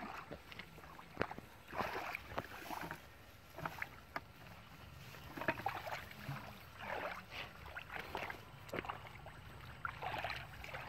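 Irregular sloshing and splashing of shallow muddy water, made by someone wading and groping through the mud by hand for fish.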